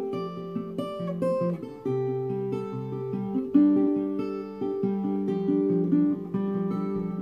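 Acoustic guitar played alone, picking a chord pattern note by note with no singing.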